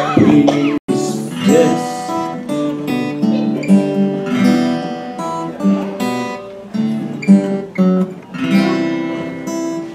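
Acoustic guitar strummed in steady chords, with no singing. The sound cuts out for a moment about a second in.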